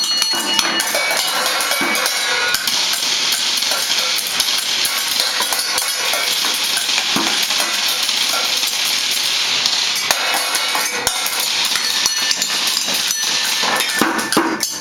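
Children banging and shaking noisemakers: a dense, unbroken clatter of quick taps and jingling rattles with no steady beat.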